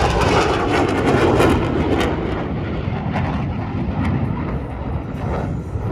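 Fixed-wing aircraft passing with a loud, rushing noise that peaks at the start and slowly fades away.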